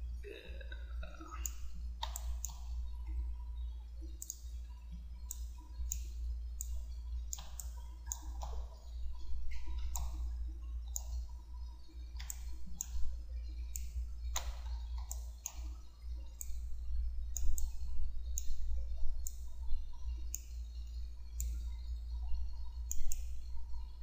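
Irregular single clicks of a computer mouse, about one or two a second, over a steady low electrical hum.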